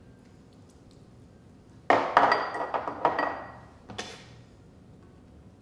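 Kitchen utensils and glassware clattering on a countertop: a sudden burst of clinks and knocks about two seconds in, ringing briefly as it dies away, then one more knock a couple of seconds later.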